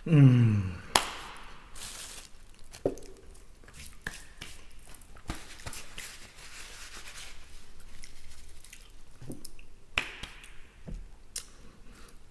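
A man's loud burp at the start, falling in pitch over about a second, right after a heavy meal. Then soft rustling and scattered small clicks as a paper napkin is worked over greasy hands.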